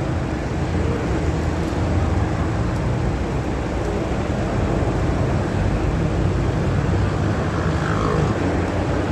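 Steady drone of running machinery, even and unbroken, with most of its weight low down.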